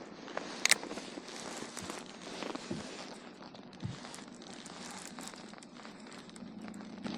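Light scattered clicks and rustling, the handling noise of gear in a fishing kayak, with one sharper click under a second in.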